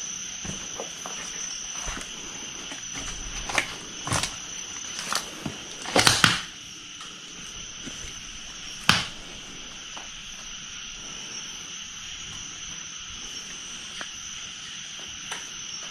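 Night insects chirring steadily at two high pitches. Several sharp knocks or crunches break in, the loudest a quick cluster about six seconds in and another about nine seconds in.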